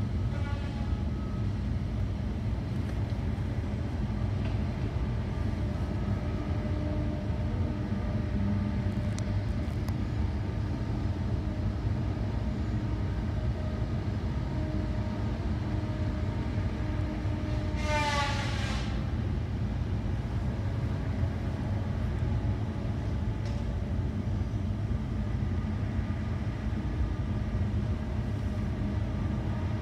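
Caterpillar 552 tracked forestry machine working, its diesel engine running steadily as the boom and tracks move. A brief high squeal sounds about two-thirds of the way through.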